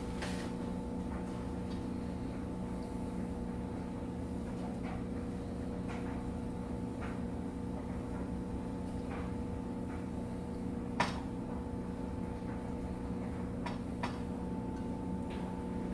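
Steady low hum with scattered faint clicks and taps as marinated chicken wings are laid onto a metal wire cooling rack on a baking sheet; one sharper click about eleven seconds in and a smaller one near the end.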